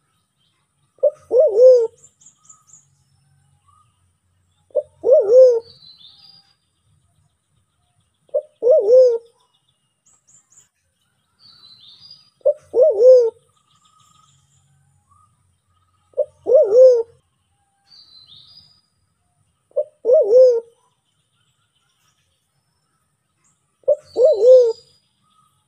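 Sulawesi black pigeon (white-faced cuckoo-dove, Turacoena manadensis) calling: a short note followed by a longer arched note, repeated seven times at an even pace about every four seconds. Faint high chirps of small birds come between the calls.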